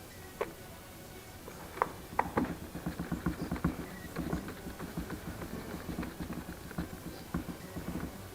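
Hand work on the plastic cover of a DeWalt cordless chainsaw: a few sharp plastic clicks in the first two and a half seconds, then a fast, irregular run of taps and scraping rattles.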